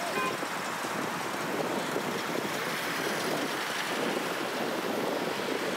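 Steady outdoor street ambience: an even, noisy hiss with no distinct events, like wind and distant traffic blended together.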